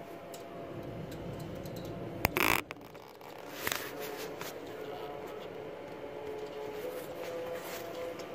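Work noise from handling tools in an engine bay with the engine off: a sharp click about two seconds in, then a brief loud scrape, and a smaller one a second later, over a steady faint hum.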